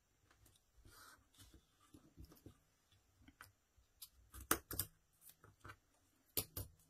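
Scissors snipping a strip of foam tape, mixed with the light handling of tape and card: a scattered run of short, sharp clicks, the loudest about four and a half and six and a half seconds in.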